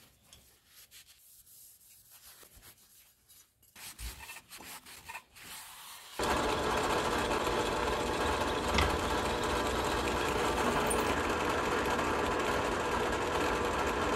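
Benchtop drill press running steadily while its bit drills into a steel bar, starting abruptly about six seconds in. Before that come faint rubbing and handling sounds from a metal part being wiped with a rag.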